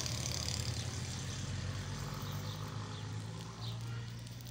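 A motor vehicle's engine running steadily at idle as a low hum, with a few small birds chirping faintly.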